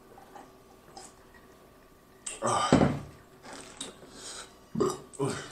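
A man eating makes short wordless vocal sounds: a loud one about two seconds in, another near the end. Between them come soft sounds of a snow crab leg being handled at his mouth.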